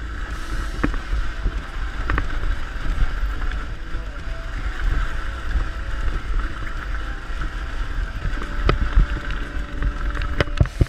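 Enduro motorcycle running along a rocky track, its engine under heavy wind noise on the microphone, with sharp knocks and rattles from the bike hitting stones, several of them near the end.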